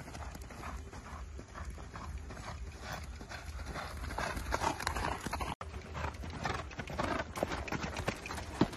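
Horse hoofbeats on a sand arena as a ridden horse runs at speed, a quick uneven drumming over a low rumble, with a momentary dropout a little past halfway.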